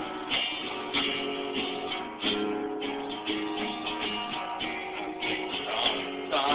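Acoustic guitar strummed in a steady rhythm, chords struck again and again at an even pace.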